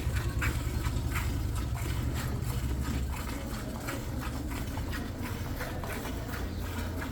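A cow being milked: short, repeated squirts of milk into a pail, over a steady low rumble.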